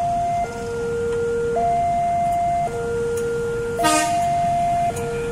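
Railway level-crossing warning alarm sounding as a train passes: a slow electronic two-tone alternation, a low and a high tone of about a second each, over low traffic and train rumble. A short horn blast cuts in about four seconds in.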